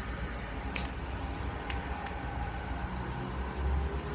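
Three short clicks as the sections of a metal telescopic monopod are twisted and pulled out to extend it, over a steady low hum.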